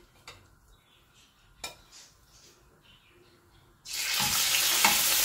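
A couple of faint clicks, then about four seconds in marinated chicken pieces drop into hot oil in a frying pan and start sizzling loudly as they begin to shallow-fry.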